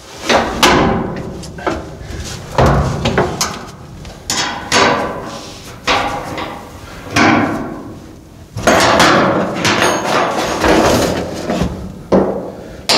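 About a dozen irregular metal clanks and knocks, roughly one a second, each ringing briefly: tools striking and working at the sheet-metal body of a 1928 Ford Model A truck as it is taken apart.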